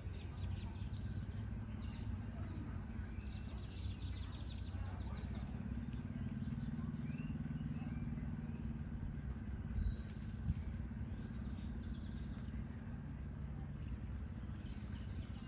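A motor running with a steady low hum, with birds chirping faintly over it and two short knocks about ten seconds in.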